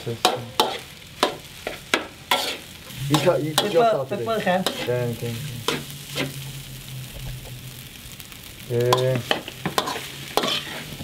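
Metal spatula scraping and knocking against a metal wok as egg fried rice is stir-fried, with a light sizzle underneath. The scrapes and knocks come at an irregular pace throughout.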